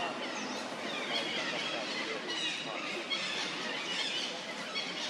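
Young macaques squealing again and again in short, high bursts as they wrestle in play.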